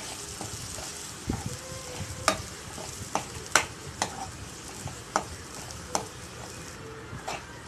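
Onion-tomato masala with ground spices sizzling in oil in a non-stick kadai while it is stirred with a metal spoon. The spoon scrapes and clicks against the pan about once a second.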